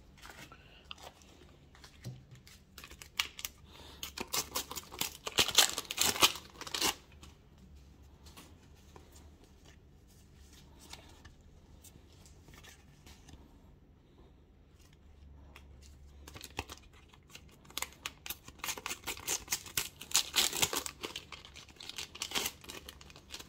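Paper sticker packets being torn open and their wrappers crinkled by hand. The crackling rustle comes in two spells, one a few seconds in and one near the end, with quiet handling between.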